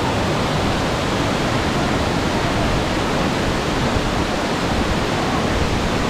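Waterfall close by: a loud, steady rush of falling water, even and unbroken.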